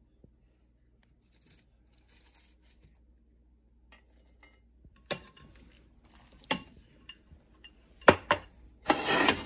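Ceramic dishes clinking and knocking together a few times as food is plated, with a short scraping rush near the end.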